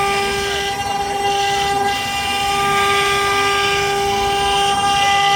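AKM2040 CNC wood router's spindle running with a steady high whine, with a rushing noise that swells and fades every couple of seconds.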